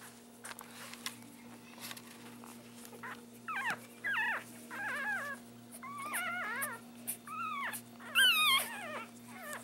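Newborn Yorkie-poo puppies, about ten days old, whimpering and squealing: a string of short, high-pitched cries starts a few seconds in. The loudest is a wavering squeal near the end.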